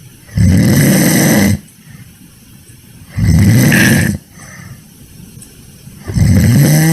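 Loud snoring: three snores, each about a second long and roughly three seconds apart, with quiet breathing between them.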